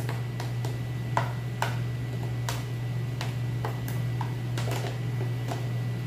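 A spatula tapping and scraping against the sides of a blender jar as cornmeal cake batter is stirred by hand, giving about a dozen irregular sharp taps. A steady low hum runs underneath.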